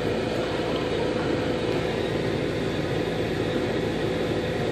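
Steady hum with a constant rushing noise inside a truck cab, typical of the idling truck and its air-conditioning fan.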